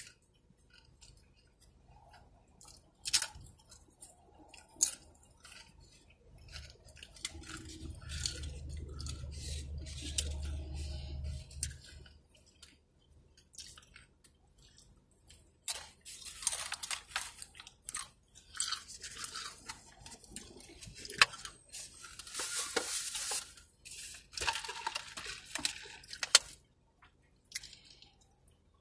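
Close-up chewing and crunching of tortilla chips with salsa, a run of crisp crackly bites and mouth clicks, densest in the second half. A low rumble sounds for several seconds in the middle.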